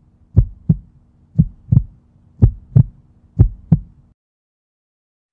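Heartbeat sound effect: four double thumps, about one pair a second, over a faint steady low hum, cutting off about four seconds in.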